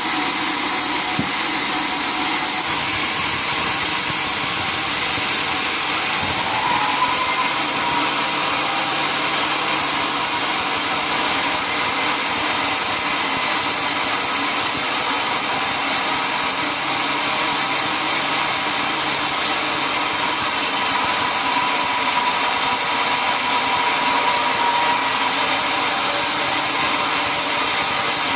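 Sawmill machinery running steadily: an even, loud mechanical noise that does not break off, with a faint steady tone in it.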